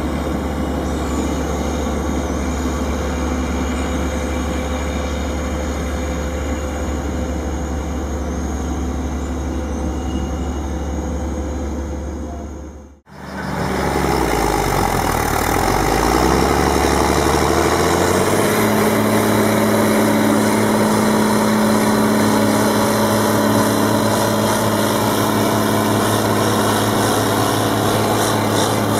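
Heavy diesel engine running steadily. After a sudden cut about 13 seconds in, a different heavy engine shifts up and down in pitch for a few seconds, then runs steadily at a higher pitch.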